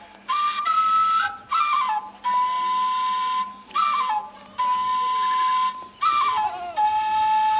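Background music: a flute-like wind melody in short phrases, each a few quick stepped notes settling into a long held tone.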